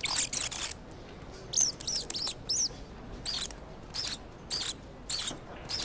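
Mice squeaking: a quick run of short, high squeaks that each rise and fall in pitch, then a second cluster of four, then single squeaks about every half second.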